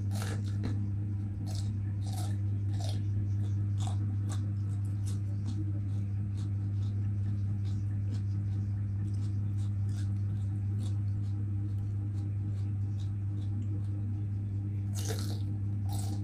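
Crunching bites and chewing of raw bitter melon, crisp crunches in the first few seconds and a fresh bite near the end, over a steady low hum.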